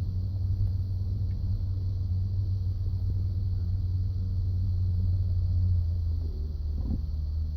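Ford F-150 pickup rumbling steadily and low while moving, with a change in the rumble about six seconds in. This is the noise that appears when the truck turns right, which the owner blames on the front transfer case, as if the front wheels were engaging while in 2WD.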